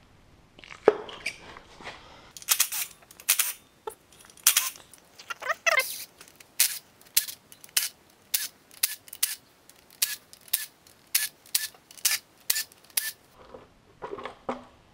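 Cordless driver run in short bursts, roughly two a second, backing out bolts on the cylinder-bank cover of an Audi 5.2 V10 during teardown. A few dull knocks follow near the end as the cover is handled.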